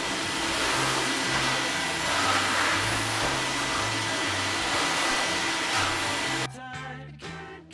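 Canister vacuum cleaner running with its floor brush on a hard laminate floor, sucking up construction dust; a steady high whine sits in the rush of air. It cuts off suddenly about six and a half seconds in, leaving background music.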